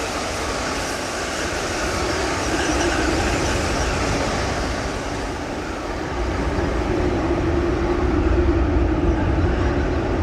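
Steady rumble and hiss of a large vehicle, with a faint hum that grows stronger in the second half.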